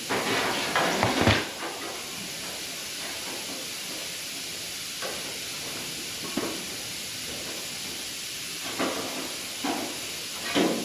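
Sheet-metal patch being handled and test-fitted into a truck fender's marker-light hole. A scraping rustle and clunks come in the first second and a half, then a few light metal knocks over a steady hiss.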